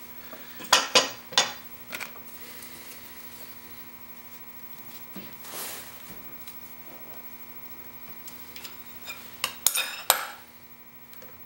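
Metal clinks and taps of steel diamond sharpening plates being lifted from and set into a recess in a granite counter, with the metal sharpening jig set down on them. There are clusters of clinks about a second in and again near the end, and a short scrape in the middle as a plate is pried up with a wooden stick.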